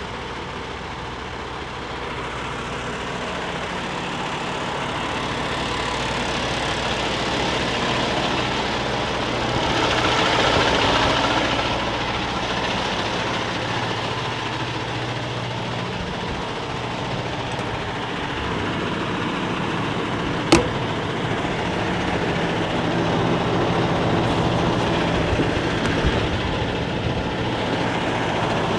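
Diesel semi-truck idling steadily, with a rushing swell of noise about ten seconds in and a single sharp click about twenty seconds in.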